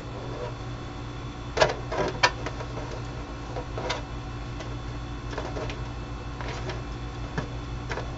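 Soft rustles and light clicks of embroidery-floss strings being handled and pulled while tying a square knot, a few brief ones spread through, over a steady low hum.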